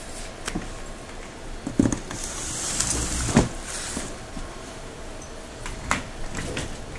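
A miniature dachshund puppy and a teacup Yorkshire terrier play-wrestling on a blanket: scuffling and rustling with a few sharp thumps, the loudest about three and a half seconds in.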